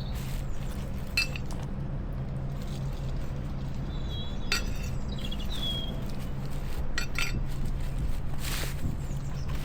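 Light knocks and clinks of potatoes being handled during a harvest from jute grow bags, a handful of separate strikes, over a steady low rumble. A few short high chirps come around the middle.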